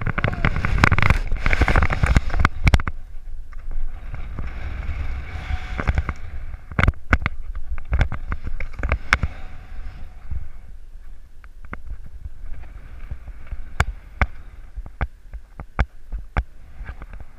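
Wind buffeting an action camera's microphone during a bungy jumper's freefall and rebound, loudest in the first three seconds and weaker after that, with many sharp knocks and clicks throughout.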